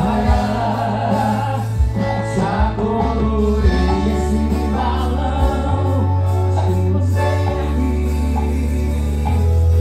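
Loud music with singing over long held bass notes.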